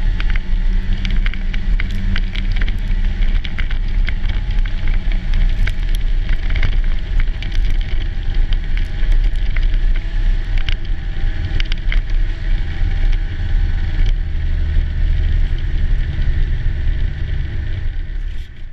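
Snowmobile engine running under way, with many sharp ticks of snow spray striking the camera; the engine eases off near the end.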